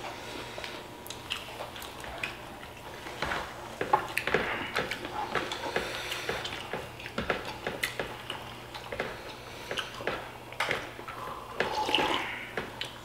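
Wet, close-up sounds of people eating by hand: chewing and squelching of food, broken by scattered sharp clicks.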